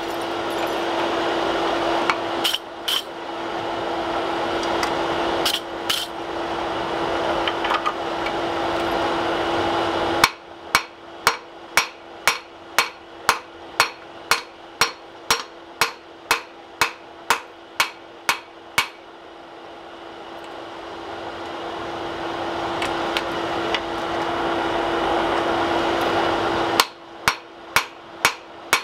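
A forge runs with a steady rushing roar and a constant hum. About a third of the way in, and again near the end, a hand hammer strikes glowing axe steel on the anvil in an even rhythm of about two and a half blows a second, forge-welding and drawing out the axe bit.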